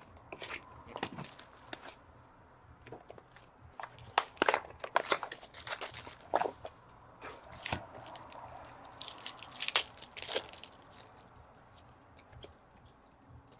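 Trading-card pack wrappers being torn open and crinkled, with the cards rustling in the hands: irregular sharp crackles and rustles.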